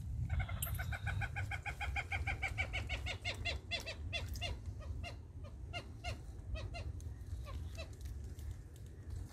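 A bird calling a long series of short, clear notes, quick at first at about five a second, then slowing and spacing out until it stops near the end. A steady low rumble runs underneath.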